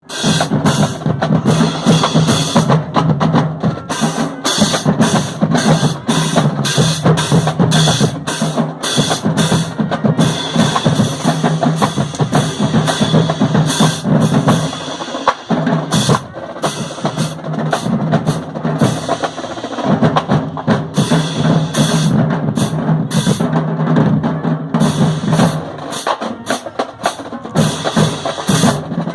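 Marching band drums playing a fast, loud cadence of snare and bass drum strikes, with a steady low pitched part underneath, and a short break about halfway through.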